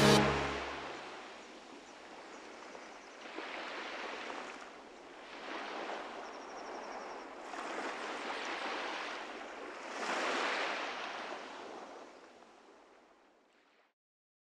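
Ocean surf: waves wash in and draw back in a run of slow swells, one every two seconds or so, then fade out near the end.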